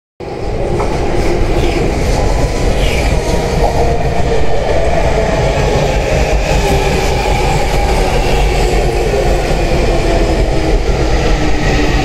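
Toei Mita Line 6500-series electric train running past close by: a loud, steady rumble of wheels on rails with a faint whine that slides in pitch.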